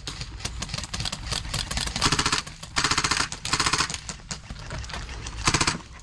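S&T M249 airsoft electric gun (AEG) firing four short full-auto bursts, each a rapid even rattle of the gearbox cycling, the last one near the end. Scattered single clicks of other fire run between the bursts.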